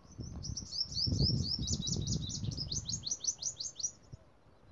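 A small songbird singing a fast run of high, downward-slurred notes, about six a second, that stops shortly before the end. A low rumble lies beneath it.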